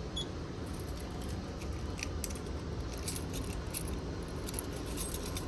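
A bunch of keys jingling in a hand: light metallic clinks scattered through, more frequent from about two seconds in.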